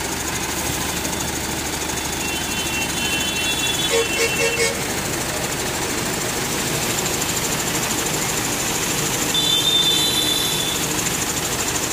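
Heavy diesel engine running steadily. Short high-pitched squeals rise above it twice, about three seconds in and again near the ten-second mark.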